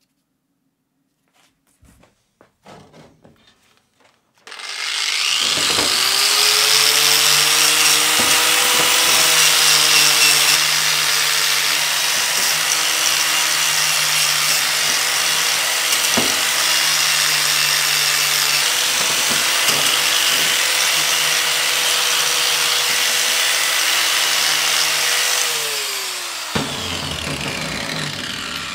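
Angle grinder with a wire wheel started up with a rising whine and run against a forged steel hammer head, cleaning the scale off it. Near the end the motor's pitch falls and it winds down. A few light knocks of handling come before it starts.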